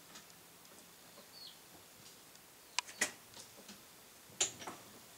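Scattered light metal clicks and clinks of tools and U-joint parts being handled at a bench vise. The loudest is about three seconds in, with another near four and a half seconds.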